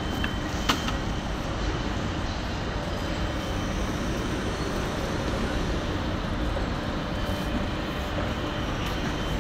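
Steady outdoor background noise on a building site: an even low rumble and hiss, with one short click under a second in.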